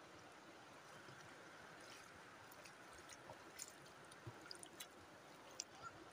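Shallow river water running faintly and steadily, with a scatter of small splashes and drips in the second half as people wade and dabble their hands in it.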